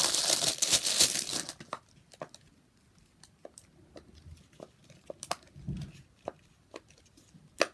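Plastic packaging crinkling and tearing for the first second and a half, then a fidget toy being pressed: a dozen or so sharp pops at irregular intervals.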